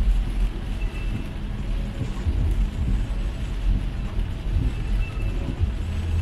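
Heavy rain falling on a moving car, over a steady low rumble of the car travelling on a wet road.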